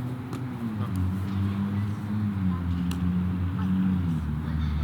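Low hum of a motor vehicle engine running, its pitch stepping down a few times.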